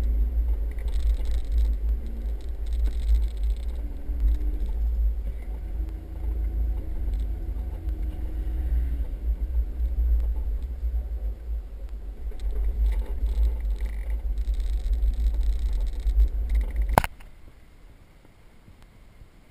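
Four-wheel-drive vehicle driving over soft sand dunes, heard from inside the cabin: a deep, continuous rumble with the engine note rising and falling. It stops abruptly near the end, leaving only a faint hiss.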